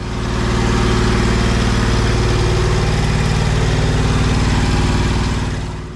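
Hustler Trimstar 36-inch stand-on mower's engine running loud and steady, swelling up just after the start and dropping back down near the end.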